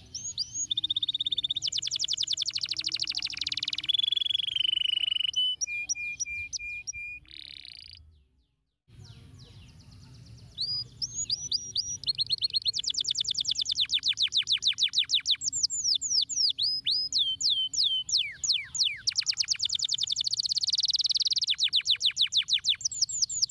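A domestic canary singing a long song of fast rolling trills and repeated swooping whistled notes. About eight seconds in, the song stops dead for roughly a second, then starts again with more trills.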